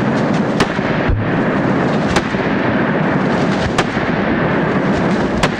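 A handgun fired repeatedly at watermelons, which burst apart: a steady loud rush of noise with a sharp crack about every second and a half.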